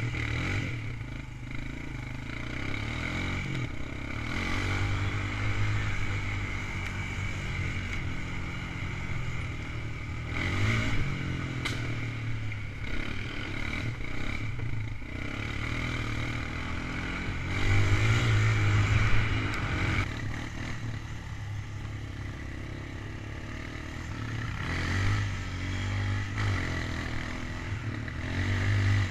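ATV (quad bike) engine running under way on a rough dirt trail, heard from the rider's helmet. Its speed rises and falls several times, loudest about two-thirds through.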